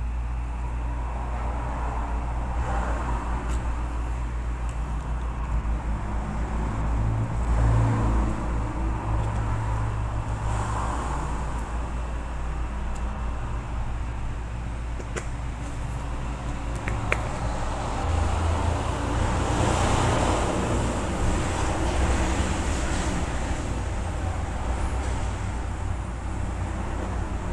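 Steady low rumble and hum that swells twice, with a few faint light clicks.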